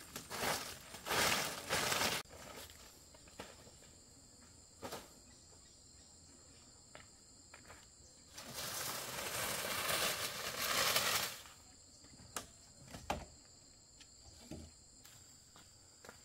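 Grass broom swishing in quick strokes over bare dirt for the first two seconds, then insects droning steadily at a high pitch. About halfway through, a long scraping rustle as a woven bamboo door panel is dragged, followed by a few light knocks.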